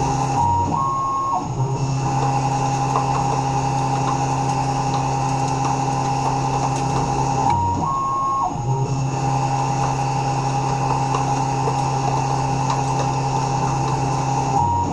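Tormach 1100 CNC mill running as a lathe, a steady motor whine that briefly steps up in pitch and then drops back about every seven and a half seconds: the machine repeating the same programmed cutting pass.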